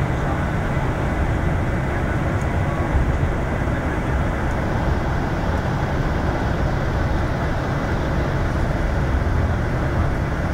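Steady low rumble of a bus's engine and tyres at motorway speed, heard from inside the passenger cabin, with a faint high steady whine.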